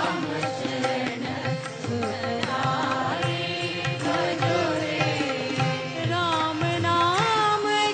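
Devotional bhajan: a voice sings a winding, ornamented melody over a steady held drone note and a low, regular beat.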